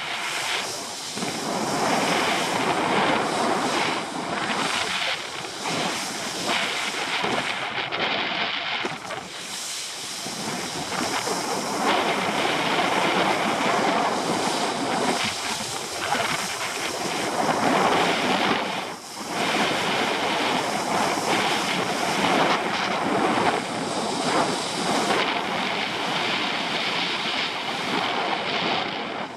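Wakeboard cutting across a lake behind a cable tow, with rushing wind buffeting the action camera's microphone and the hiss and spray of water under the board, a steady noisy rush that dips briefly twice.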